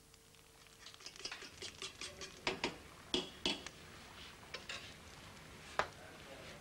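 Kitchen clatter: irregular clicks and taps of metal utensils against bowls and pans, thickest in the first couple of seconds, with a sharper tap near the end.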